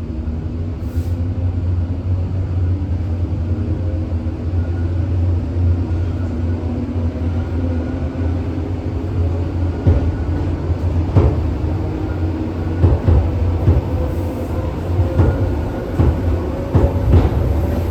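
ED4M electric multiple unit running along the track: a steady low rumble with a faint steady tone above it, and from about ten seconds in, irregular sharp knocks of the wheels passing over rail joints.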